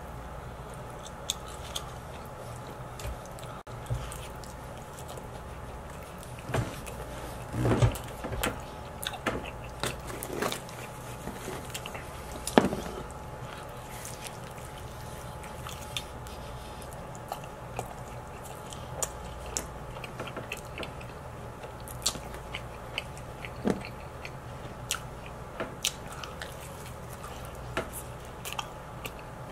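A person biting and chewing pepperoni pizza close to the microphone, with irregular wet mouth smacks and clicks that are busiest between about six and thirteen seconds in.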